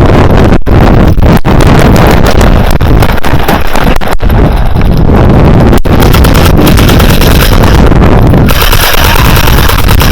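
Loud, distorted wind and rubbing noise on a body-worn camera's microphone, steady and overloading, with a few brief dropouts and a hissier stretch near the end.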